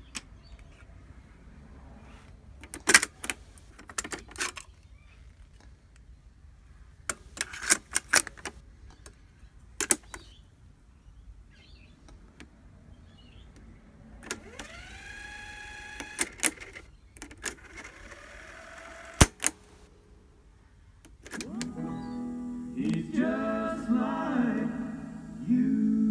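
TEAC A-160 cassette deck's power switch and piano-key transport buttons clicking several times. Music then plays back from a cassette, starting briefly about halfway through with its pitch sliding up as the tape comes up to speed, and again, louder and steady, in the last few seconds.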